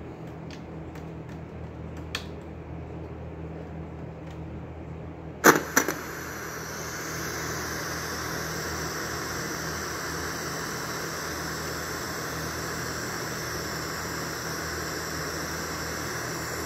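Emerson PD6511WG portable CD radio: a low hum with a few faint ticks, then a loud double click about five and a half seconds in as it is switched, followed by a steady hiss of radio static from its speakers.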